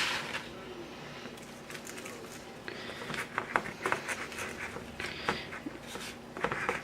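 Damp homemade dishwasher-tablet powder being pressed and packed into an ice cube tray: irregular soft scraping with light taps and clicks.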